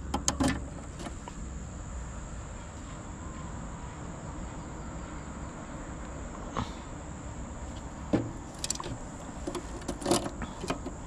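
Scattered clicks and light rattles of optical fiber patch cords and plastic SC connectors being handled inside a fiber distribution cabinet, a few near the start and a cluster near the end. Under them runs a steady low background rumble and a thin, steady high tone.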